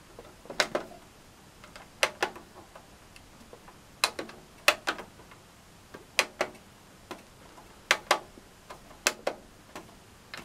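Front-panel tactile microswitch buttons of a Technics ST-CH510 tuner being pressed one after another, about seven presses, each a sharp click or a close pair of clicks, spaced irregularly a second or two apart. The switches are freshly replaced and feel nicely springy.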